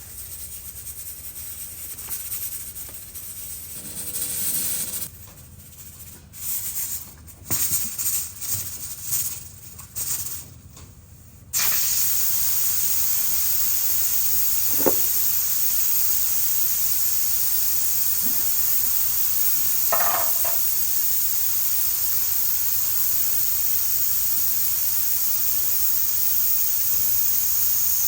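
Food sizzling in hot oil in a pan: after some irregular clattering, a steady high sizzle starts suddenly about eleven seconds in and carries on, with a couple of light knocks of utensils against the pan.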